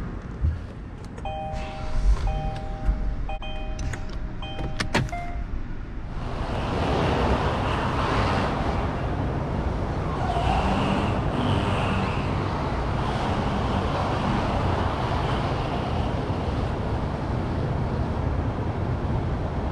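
Short electronic chimes beep several times over the first five seconds. Then, from about six seconds in, the Kia Sedona's newly installed 3.3-litre V6 runs louder and steadily as the minivan drives off.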